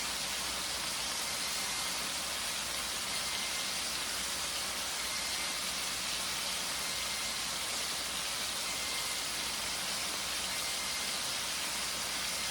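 Tri-tip steaks sizzling steadily in a hot stainless steel pan.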